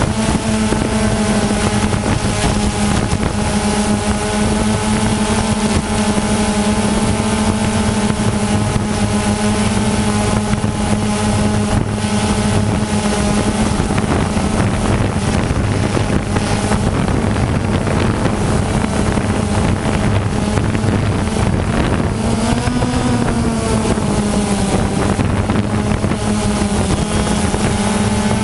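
DJI Phantom 2 quadcopter's electric motors and propellers buzzing steadily, heard up close from the drone itself, with wind noise on the microphone. About 22 seconds in the pitch briefly rises and falls as the motors power up and the drone climbs.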